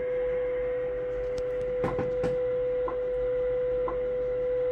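WWV shortwave time-signal station received in AM on 25 MHz through a Yaesu FTdx10: a steady 500 Hz tone with a short tick about once a second, over faint static.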